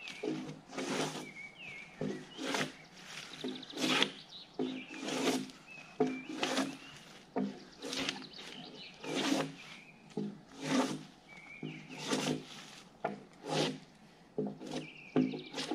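Gränsfors Bruks drawknife stripping bark from a log in a quick, steady run of pulls, about two scraping strokes a second.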